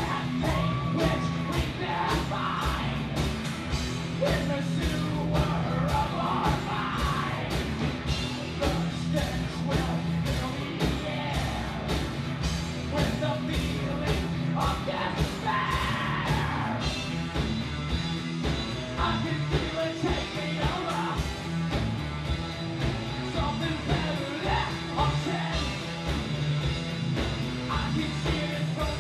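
Live rock band playing: electric guitar and drums driving a fast, steady beat, with a singer yelling the vocals into a microphone.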